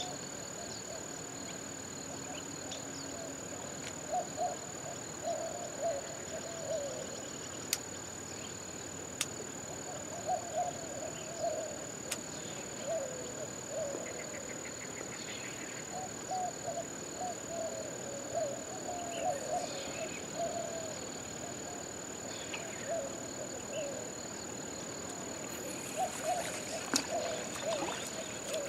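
Repeated short warbling animal calls in runs of a second or two, over a steady hiss and a constant high whine, with a few sharp clicks.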